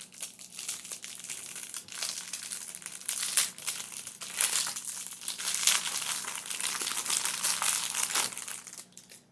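Packaging crinkling as a fidget toy is unwrapped by hand, with irregular crackling handling noise that dies away shortly before the end.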